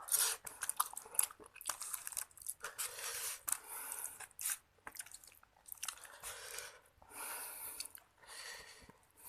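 Close-miked chewing of seblak, Indonesian spicy wet crackers, in irregular bursts with short pauses between mouthfuls.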